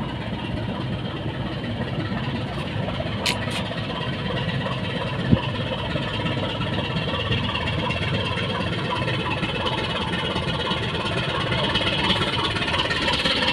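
Tugboat's engines running steadily, a dense continuous drone with faint steady tones. A brief knock sounds about five seconds in.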